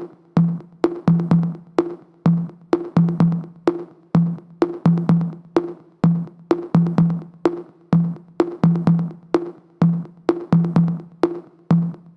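Background music: the instrumental intro of an electronic song, a steady drum-machine beat of sharp hits with short, punchy bass notes under it.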